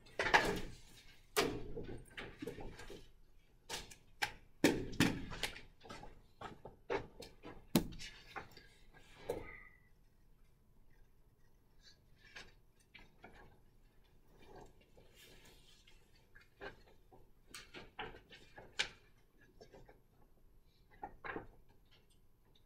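Scattered knocks, clicks and rustles of a classroom during quiet seat work, dense for the first ten seconds or so and sparser after.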